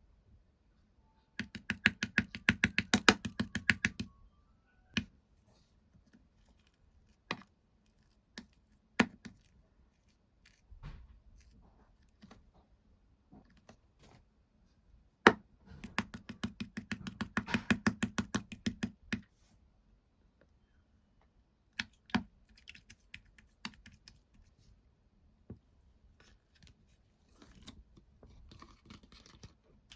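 Two-layer slime being squished and poked: two runs of rapid, crisp clicks and pops from trapped air, about eight a second, with single pops and soft crackles in between.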